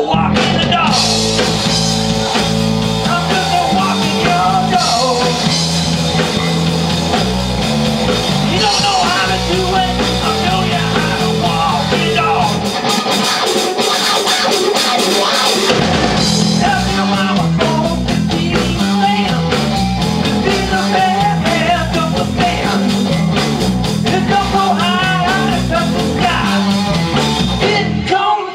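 Live rock band playing: electric guitar, electric bass and drum kit together.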